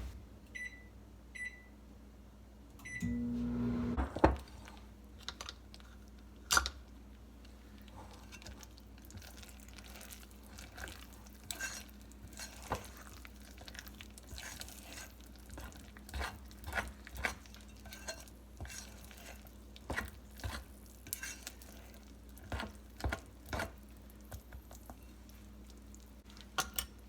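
Microwave oven keypad beeping three times as the time is set, then the microwave starting with a brief louder surge and a thunk, and running with a faint steady hum and scattered small clicks while it heats the peanut brittle mixture.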